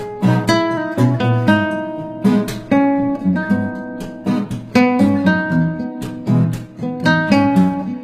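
Background music on acoustic guitar: strummed chords mixed with quick plucked notes in a lively rhythm.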